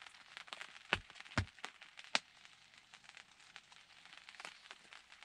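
Light rain pattering on the fabric roof of a ground blind: scattered, irregular ticks, with a few sharper drops between about one and two seconds in.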